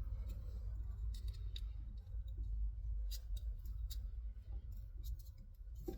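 Scattered light clicks and scrapes of small plastic parts being handled, a clip and its connector being fitted, over a steady low rumble.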